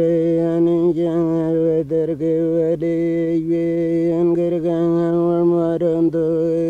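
A single low droning note held without a break, with rich overtones that shift and waver over it and a few brief catches. It is a drone in the soundtrack music.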